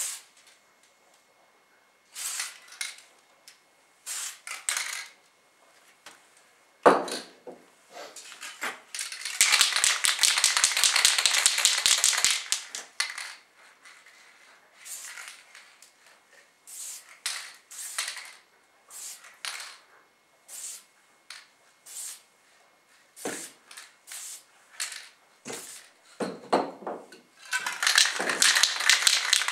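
Aerosol spray paint cans hissing in many short bursts onto a rifle stock, with two longer sprays: one about nine seconds in lasting three or four seconds, and another starting near the end. A few knocks from handling the cans fall between the sprays.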